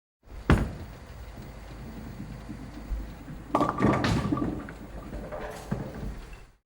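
A sharp knock, then a run of clattering and knocks from hard objects being handled, and another knock near the end, over a low hum.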